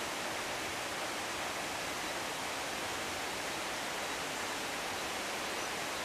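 A steady, even rushing hiss of forest background, with no distinct events.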